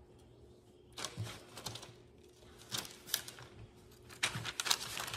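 Slices of bread being laid onto a parchment-lined baking sheet: the parchment paper rustles and the slices tap down, in a few short bursts of handling.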